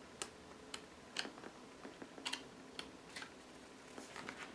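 Faint light clicks and taps, about six scattered over a few seconds, from handling the Blu-ray set's booklet and packaging.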